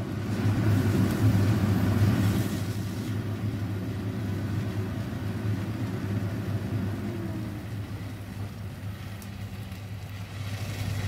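Pancit noodles being stir-fried and tossed with tongs in a hot nonstick wok, with frying noise over a steady low hum. The noise is loudest in the first few seconds and eases off after about seven seconds.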